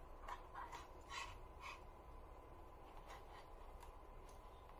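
Faint handling noise: a few light clicks and rustles as the GPD Duo's chassis and cable parts are moved by hand, over quiet room tone with a faint steady tone.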